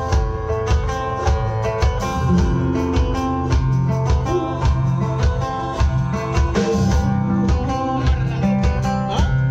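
Instrumental band music: a drum kit keeps a steady beat under a bass line and guitar, with no singing.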